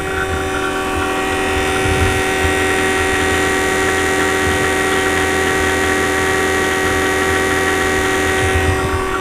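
Vacuum pump running steadily, a constant motor hum, as it pulls a deep vacuum on a newly brazed air-conditioner line set, with the micron gauge reading about 240.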